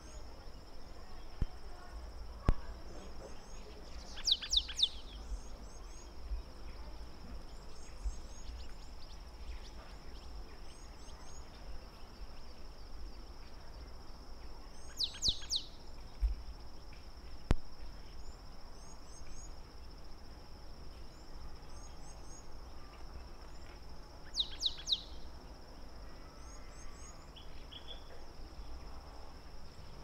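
Bird calls: three short clusters of sharp, quick notes, about ten seconds apart, over a steady high-pitched insect drone, with faint high chirps in between.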